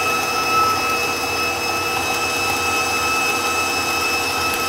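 KitchenAid bowl-lift stand mixer running at a steady speed with a high, even motor whine, its flat paddle beating thick choux paste in the stainless steel bowl.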